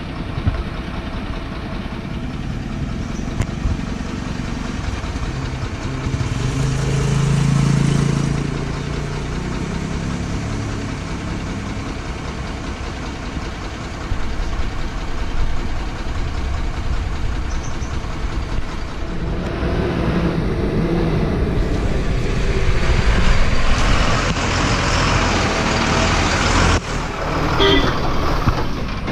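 Tata tipper truck's diesel engine running at idle, with a rev that rises and falls about seven seconds in. In the last third it runs louder, with a broad rushing noise over the engine.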